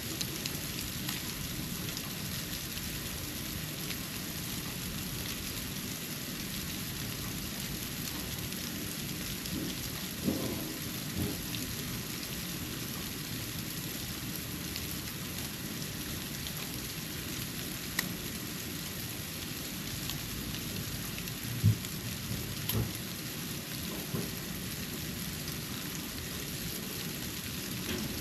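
Snow falling on a porch: a steady soft hiss with scattered light ticks, and a few short low thumps around the middle and later on.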